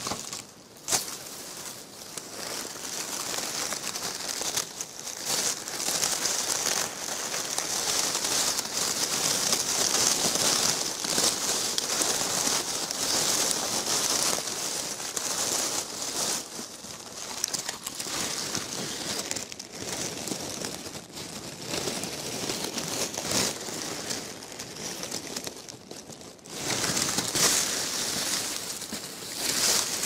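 Dry leaf litter, grass stems and a nylon mesh insect net rustling and crinkling as hands search through the ground cover, in uneven, continuous bursts with two short lulls, one just after the start and one near the end.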